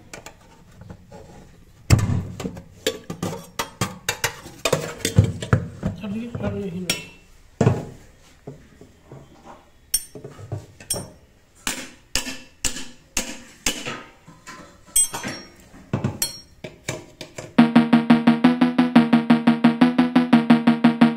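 Irregular knocks and clinks of kitchen utensils and dishes. Music with a steady beat comes in near the end.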